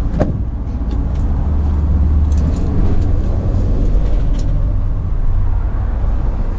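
Van passenger door opened with a click just after the start, over a loud, steady low rumble.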